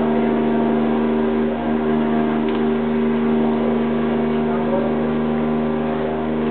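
Steady droning hum made of several held tones, coming through a cruise ship's aft elevator shaft. Its cause is unknown; the passengers take it for wind making the shaft vibrate.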